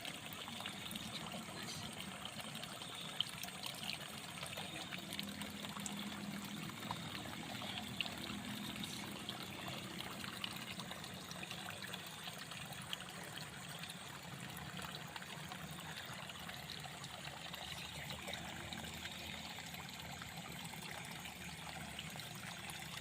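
Water trickling steadily in a flooded rice paddy, with a few faint clicks.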